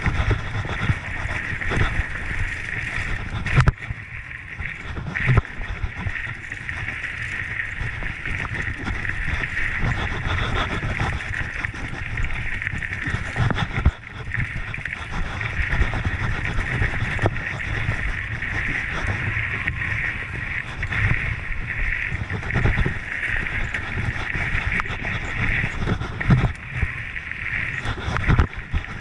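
Mountain bike riding fast down a dirt trail, heard through a handlebar-mounted camera: wind rumbling on the microphone and tyres rolling over dirt, with a steady high hiss and sharp knocks and rattles as the bike hits bumps.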